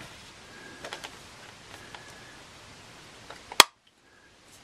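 Small clear plastic parts case handled, with a few light clicks, then one sharp snap about three and a half seconds in as its lid pops open. The sound drops out briefly just after the snap.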